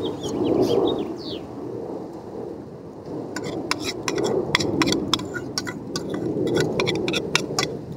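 Metal spoon scraping and clinking inside a stainless steel pot, with a quick series of sharp ticks through the second half. This sits over a swelling rush of noise, and a bird chirps briefly in the first second or so.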